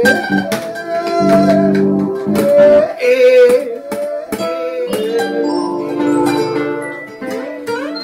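Acoustic guitar being played: plucked notes and strummed chords ringing on, under a higher melody line that wavers in pitch.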